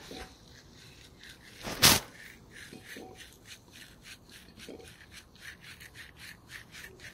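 Cleaning strokes rubbing the pistons of a Honda VFR800 rear brake caliper, a quick, even rhythm of short strokes. About two seconds in, one brief loud noise stands out above the rubbing.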